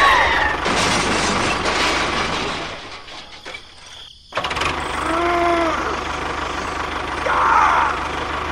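Tractor engine idling with a steady low chugging. It drops away about three seconds in and comes back abruptly a second later, with short rising and falling pitched sounds at the start and again around five seconds in.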